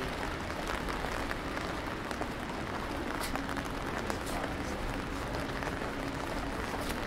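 Steady rain falling: an even patter of drops with sharper taps scattered through it.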